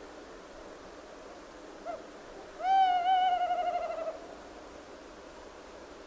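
Tawny owl hooting: a short note, then a long wavering hoot that sinks slightly in pitch over about a second and a half.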